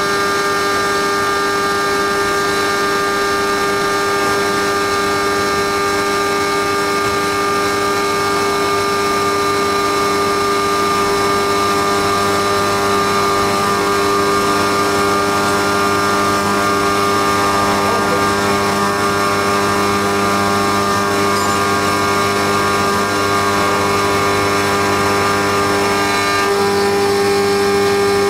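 Haas CNC mill running a 4th-axis cam-machining cycle: a steady machine whine from the spindle and axis drives, its tone shifting slightly near the end.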